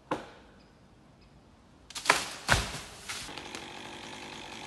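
Two-stroke chainsaw running steadily up in the tree. It comes in after two loud sharp knocks about two seconds in.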